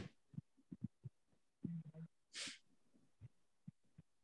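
Near silence with a few faint small noises: a click at the start, a brief low murmur near the two-second mark, and a short breathy hiss just after it.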